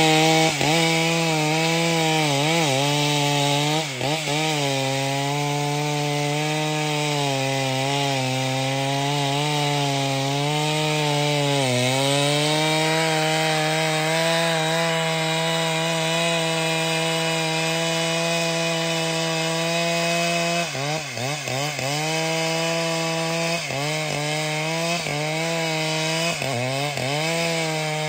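A professional-size two-stroke chainsaw running at high revs while cutting through trembesi wood. Its engine note sags and recovers as the chain bites. It holds steady for several seconds in the middle, then dips repeatedly in quick succession near the end.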